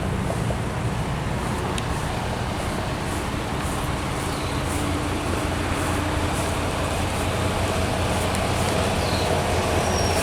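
Steady rumble of road traffic from slow, jammed cars and engines, with no distinct events standing out.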